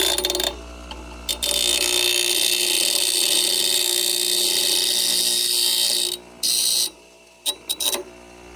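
Power grinder grinding down a cut steel angle bracket in several passes: one long pass of about four and a half seconds, a short one after it, and a few brief touches near the end.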